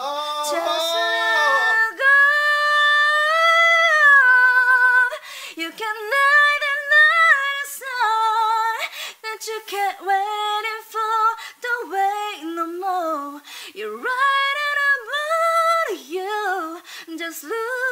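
A woman singing high and unaccompanied, practising pop-ballad phrases in a vocal lesson. She holds one long note with vibrato about two seconds in, then sings shorter phrases that rise and fall.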